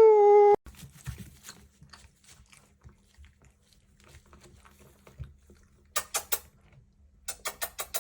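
A dog's drawn-out howling whine that cuts off about half a second in. Then faint clicks, and near the end two runs of quick, short, breathy puffs.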